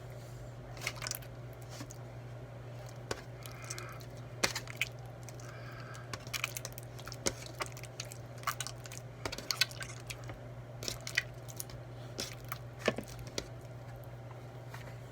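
Slime being mixed and worked by hand, giving irregular small sticky clicks and crackles over a steady low hum.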